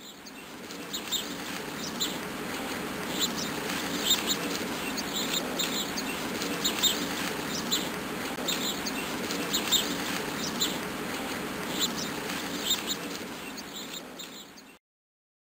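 Small creek running and splashing over rocks, with birds chirping over it again and again; it fades out near the end.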